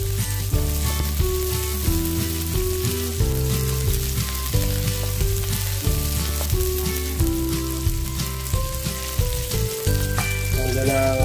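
Sliced onion, garlic and ginger sizzling in hot oil in a metal wok, stirred and scraped with a wooden spatula in frequent short strokes. Background music with steady held notes plays underneath.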